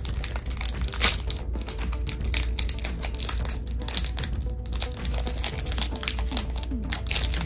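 Foil Pokémon booster pack wrapper crinkling and crackling as it is worked and torn open by hand, with a sharp louder crackle about a second in.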